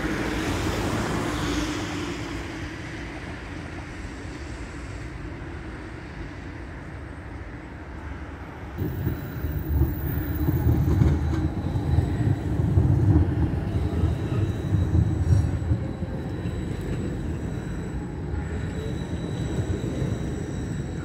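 Green city tram running on street rails close by: a low rumble that builds about nine seconds in and fades after about sixteen seconds, over a steady street background.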